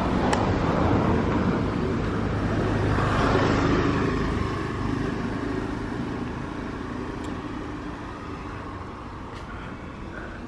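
A motor scooter passing and riding away: its engine and tyre noise grow louder to a peak a few seconds in, then fade steadily as it pulls off up the road.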